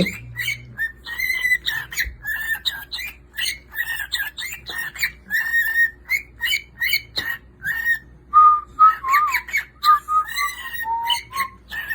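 Cockatiel chattering in a rapid run of short, high chirps; about eight seconds in it switches to a string of lower whistled notes with small slides in pitch.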